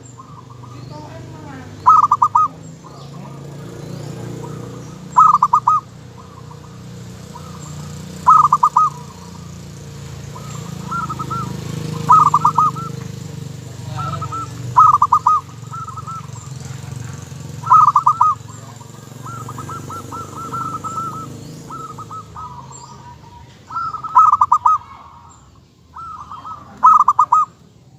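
Zebra dove (perkutut) cooing: a loud, rapid stuttering phrase of several short notes, repeated about every three seconds, with softer trilled notes in between.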